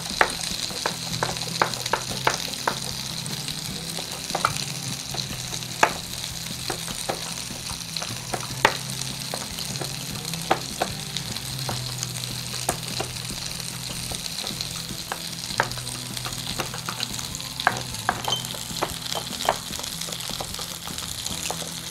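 White sauce of milk, sautéed onion, capsicum and spices sizzling in a pan while a spoon or spatula stirs it, with irregular clicks and scrapes against the pan. A low steady hum runs underneath.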